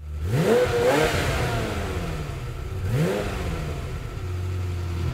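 Car engine revved twice from idle. Each blip rises quickly in pitch, then falls slowly back, and it settles to a steady idle near the end.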